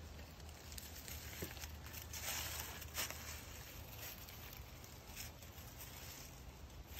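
Footsteps rustling through dry leaf litter, with a burst of louder crackling about two to three seconds in.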